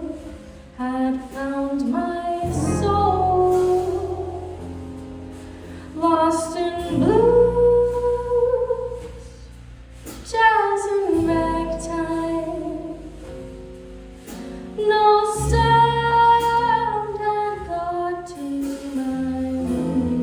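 A woman sings a slow jazz ballad with long held and sliding notes, in phrases of a few seconds, over a small jazz group with a low bass line.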